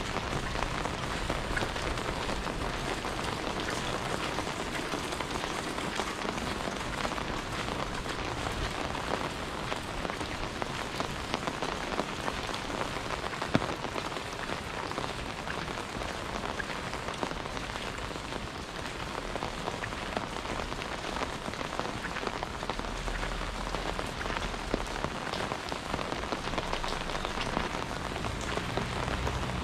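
Steady rain falling, an even, continuous hiss of drops on surfaces, with a single sharp tap about halfway through.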